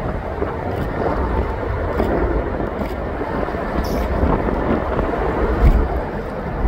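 Boeing 777's twin jet engines at takeoff power as it climbs away, a steady deep rumbling noise. Wind buffets the microphone, gusting harder near the end.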